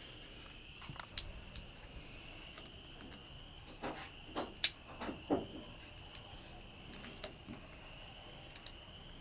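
Scattered light metallic clicks and taps as .32 S&W cartridges are handled and slipped into the cylinder of an opened U.S. Revolver (Iver Johnson) top-break revolver, the sharpest a little before and after the middle. A steady high-pitched insect trill runs underneath.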